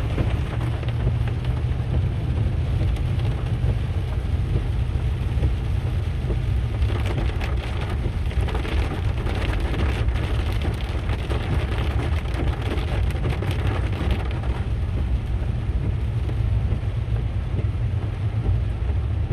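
Inside a moving car: a steady low road and engine rumble with water hitting the car in a dense patter, heaviest from about 7 to 14 seconds in.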